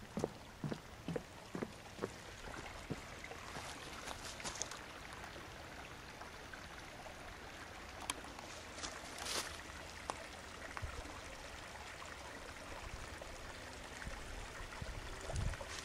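Steady rush of a small woodland creek running over rocks and a low riffle. Footsteps on dry leaf litter, about two a second, for the first couple of seconds and again near the end.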